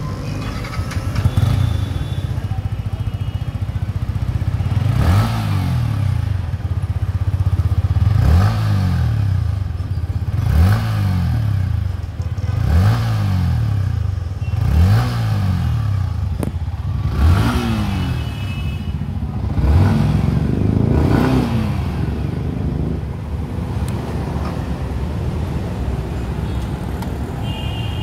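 Yamaha MT-15 BS6's 155cc single-cylinder engine, through its stock exhaust, idling and then revved in about eight short throttle blips, each rising and falling back, roughly every two to three seconds.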